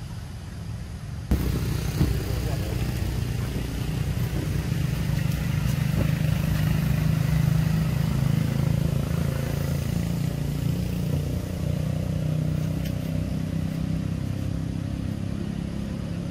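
Low, steady rumble of a motor vehicle engine running close by, starting abruptly a little over a second in, swelling toward the middle and easing off slightly near the end.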